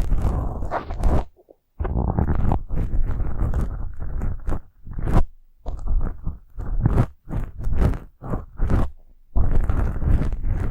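ASMR brushing: a brush stroked in quick, scratchy runs of strokes, with short pauses about a second in and near nine seconds.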